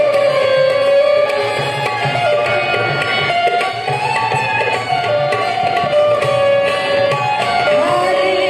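Instrumental music: a melody of held, gliding notes over a repeating drum rhythm.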